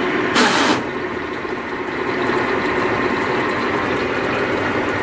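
Tractor engine driving a borewell drilling rig's cable winch, running steadily. A short, loud hiss about half a second in.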